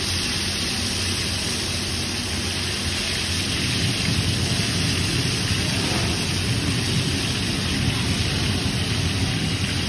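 Ghewar batter frying in hot ghee in a hexagonal mould, with a steady, dense sizzling and crackling and a low rumble underneath.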